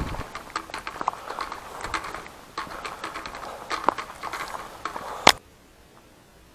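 Footsteps crunching on a dry, leaf-covered forest path, with irregular crackles and snaps of leaf litter and twigs underfoot. About five seconds in it stops with one sharp click, leaving only a faint hiss.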